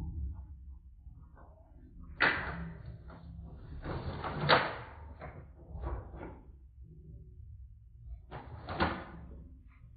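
Toy foam-dart blaster firing: four sharp knocking shots about two seconds apart, the loudest about two seconds in.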